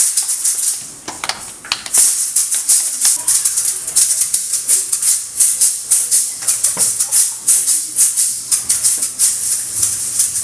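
Maracas shaken in a fast, steady joropo rhythm, with no other instrument heard. The shaking thins out briefly near the start and comes back strongly about two seconds in.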